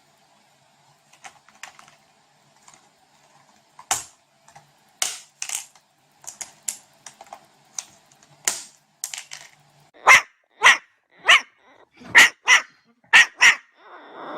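Scattered light clicks and taps, then from about ten seconds in a run of seven sharp, loud barks in quick succession.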